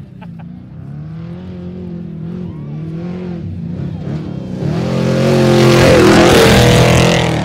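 Off-road race car approaching and passing close at speed, its engine revving with the pitch rising and falling as the throttle works. It grows louder from about four and a half seconds in, with a rush of wide noise at its loudest around six seconds as it goes by.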